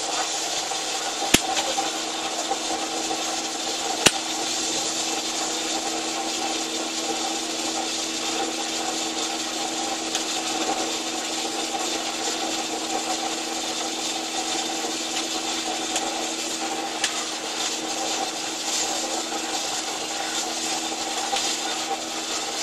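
Steady machinery noise: a constant hum with several fixed tones under a rushing hiss, with two sharp clicks, one about a second in and another about four seconds in.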